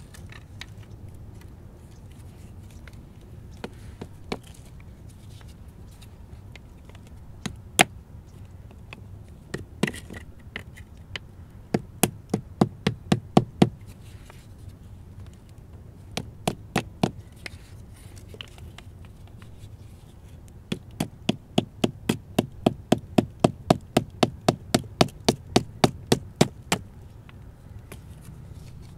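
A hand-held stone knocking against a wooden stick in repeated sharp taps: a quick run of about eight a little under halfway, then, after a few scattered knocks, a long even run of about three a second.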